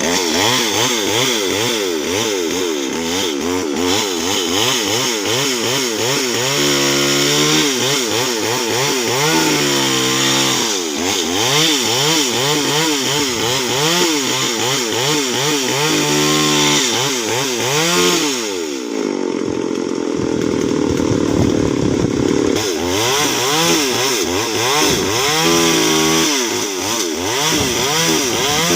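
Petrol two-stroke chainsaw running hard and cutting wood, its engine pitch wavering up and down under load. About two-thirds through it drops briefly to a low, steady idle, then revs back up.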